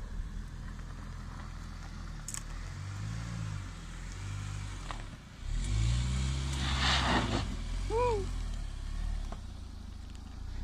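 An SUV engine revving while it works through rough off-road ground, its pitch rising and falling twice, with a loud rushing hiss from about six to seven and a half seconds in. A short high chirp sounds about eight seconds in.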